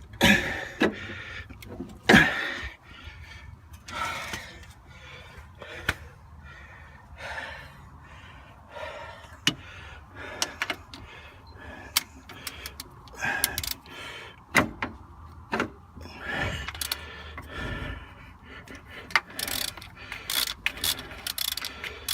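Scattered metallic clinks, knocks and rustling of hand tools and parts being handled while a skid steer's starter motor is unbolted and removed.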